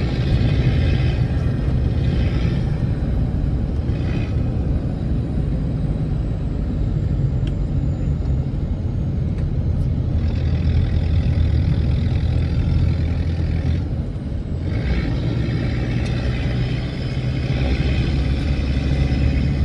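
Motor vehicle driving, a steady engine and road rumble with stretches of hissing tyre and wind noise that come and go.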